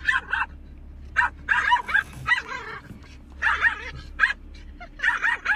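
Small dog barking in short, high-pitched yaps, in clusters of one to four, at moving windshield wipers.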